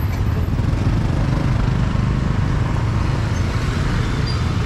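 Busy street-market background noise: a steady low rumble of traffic.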